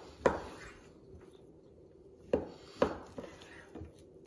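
Knife cutting through raw pork belly and knocking on a wooden chopping board: a sharp knock just after the start, then two more close together a little past the middle, with soft rubbing of meat on wood between them.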